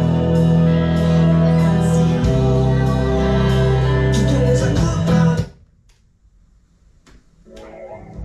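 Fender Jazz Bass played along with a recorded song that has singing, with a strong bass line. The music cuts off abruptly about five and a half seconds in, and after that there are only a few faint clicks and handling sounds.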